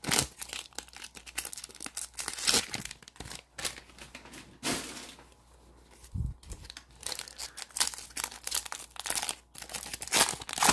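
Foil wrapper of a 2021 Panini Mosaic football card pack crinkling in the hands and being torn open, in quick irregular crackles with a short lull about halfway through.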